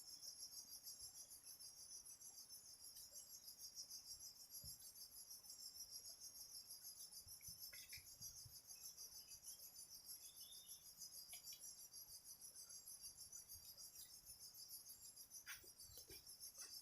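Steady high-pitched chorus of insects trilling, with a few faint clicks and knocks.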